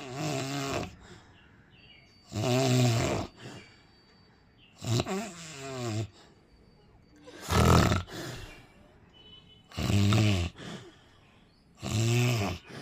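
A person snoring loudly, six snores about every two and a half seconds, each a deep pitched drone lasting under a second.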